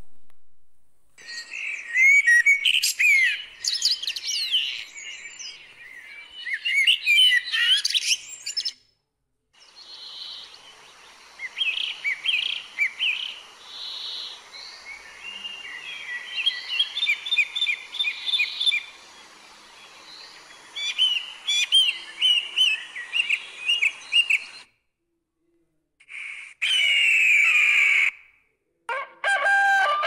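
Songbirds chirping and warbling in several separate stretches, cut apart by short silent gaps, with a faint steady hiss behind the middle stretch. A rooster starts to crow just before the end.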